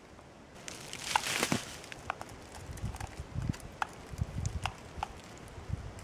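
Irregular small clicks and dull knocks of hands working at a spruce trunk, scraping hardened resin off the bark, after a short rustle about a second in.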